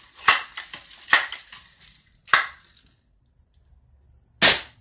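Crosman 760 Pumpmaster air rifle being worked: three sharp clacks of its mechanism about a second apart, then a single louder crack near the end.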